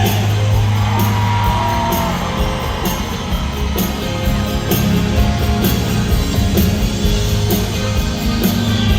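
Instrumental break in a Latin pop-rock song: band music with a steady drum beat, bass and guitar, and no singing.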